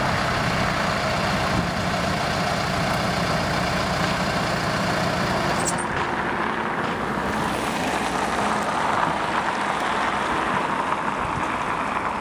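Knox Kershaw KTC1000 tie handler's engine running steadily at idle. A brief high squeak about halfway through.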